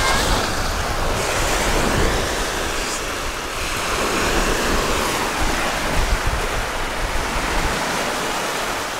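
Lake Michigan surf washing onto the beach as a steady rush, with wind buffeting the microphone.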